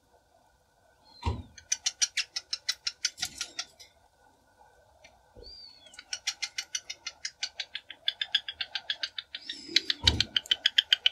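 Cockatiel calling in fast runs of short, sharp chirps, about seven a second, with a few brief rising-and-falling whistles between the runs. Two soft low thumps come about a second in and near the end.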